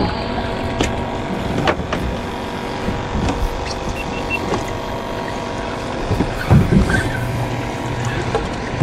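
Boat motor idling with a steady hum, with a few faint clicks over it.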